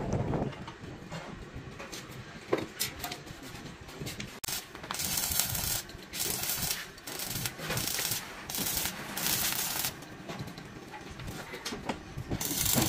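Rough scraping strokes on a hard surface, each lasting a second or two, with scattered knocks and clicks between them.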